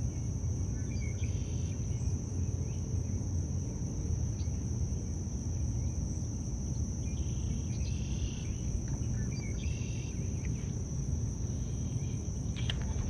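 Insects trilling in one steady, high, unbroken tone over a low rumble of wind or water noise, with a few faint short chirps now and then.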